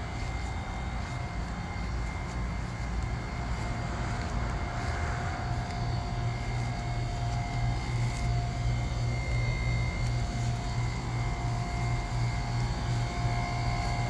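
A machine running steadily nearby: a low droning hum with a faint whine held over it.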